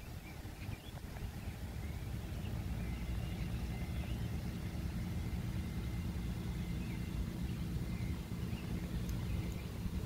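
Low, steady rumble of a motor vehicle, swelling over the first two seconds and then holding, with a faint hum, and faint bird chirps above it.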